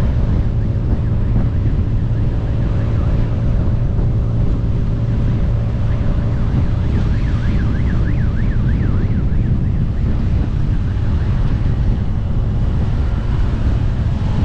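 Motorcycle engines and heavy wind rumble on the microphone while riding along a highway. A fast warbling siren sounds about six seconds in and lasts around four seconds.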